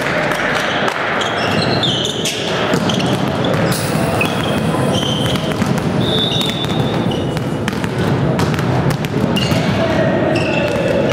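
Echoing sports-hall din during a volleyball match: a volleyball bouncing and being served with sharp slaps, players' voices, and short high squeaks.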